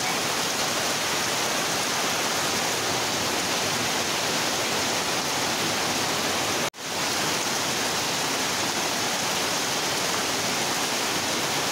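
Heavy tropical downpour, a steady dense hiss of rain with water pouring off a roof edge; it breaks off for an instant about two-thirds of the way through.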